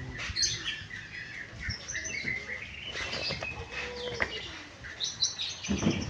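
Small birds chirping in quick, repeated short notes, with a few sharp knocks of handling mixed in.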